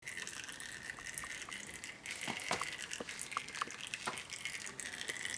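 Used compressor oil dripping and trickling from the drain of a cast iron air compressor into a plastic catch container, with irregular small drips and ticks over a steady faint hiss.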